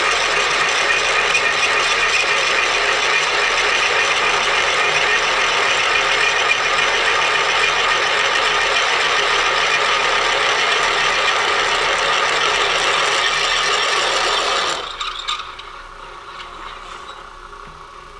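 Milling machine drilling a 51/64 in. hole through cast iron: a steady, loud run of cutting chatter over the machine's gear whine. About 15 seconds in the sound drops sharply to a much quieter running.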